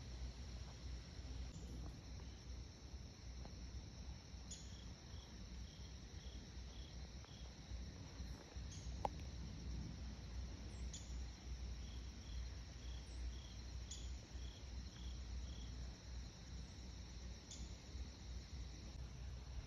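Crickets trilling steadily, with two runs of short, evenly spaced chirps at about two to three a second, one starting around four seconds in and one around eleven seconds in.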